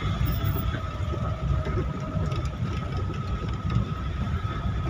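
Vehicle engine and road noise heard from inside the cabin while driving, a steady low rumble with a thin, steady high whine running through it.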